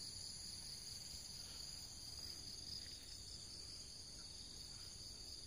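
Steady high-pitched insect chorus, several insects trilling continuously at different pitches.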